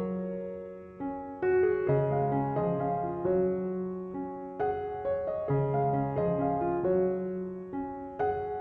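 Background music: a slow, gentle piano piece, each chord struck and left to fade.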